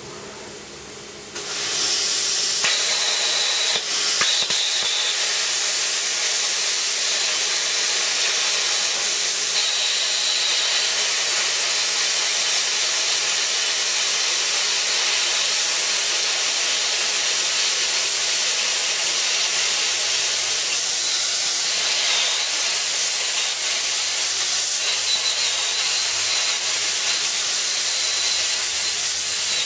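High-frequency-start plasma cutter, turned down to 15 amps, cutting 3 mm steel plate: a softer hiss, then about a second and a half in the arc strikes and a loud, steady hiss of arc and cutting air holds.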